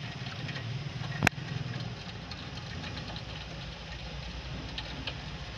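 A steady low motor hum, with one sharp click a little over a second in.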